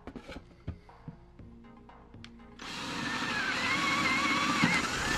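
Power drill with a twist bit boring a starter hole through a wooden board for a jigsaw blade. It starts a little past halfway and runs for about three seconds with a wavering motor whine, stopping near the end. Before it come a few light knocks of the board being handled.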